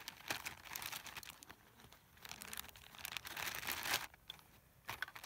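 Thin plastic bag crinkling and rustling in a run of irregular crackles as it is handled and closed at the top, loudest about four seconds in.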